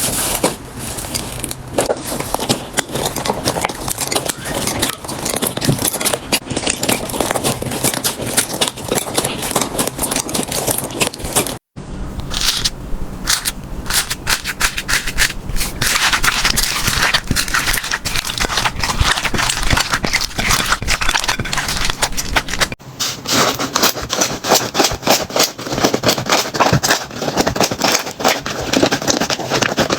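Slime being squeezed and played with, giving a dense run of sticky crackling and popping clicks. The sound changes abruptly twice, about 12 and 23 seconds in, as one slime clip gives way to the next.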